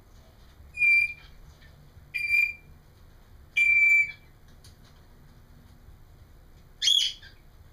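African grey parrot whistling three short, steady beep-like notes about a second and a half apart, then a different, higher call near the end.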